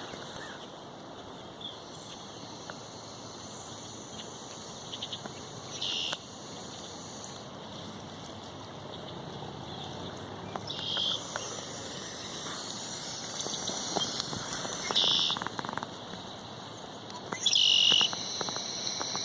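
Outdoor river ambience: a steady low hiss with birds calling in high-pitched bursts of about a second, four or five times.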